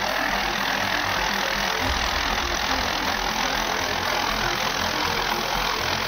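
Wood chipper running steady as bamboo stalks are fed into its infeed: a continuous, even mechanical noise with no separate cracks or knocks standing out.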